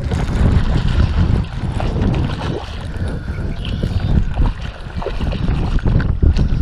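Wind buffeting the microphone: a loud, low rumble that rises and falls in gusts, with a few faint clicks over it.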